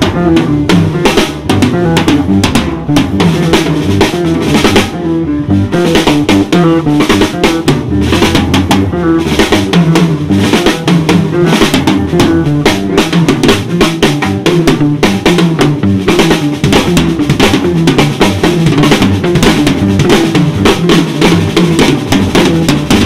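Drum kit played live in a fast, busy groove, with dense rapid strokes across snare, bass drum and cymbals over the band's pitched low instruments.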